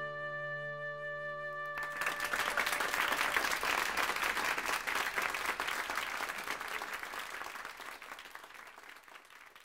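A song's final held chord ends about two seconds in, and an audience breaks into applause that fades away near the end.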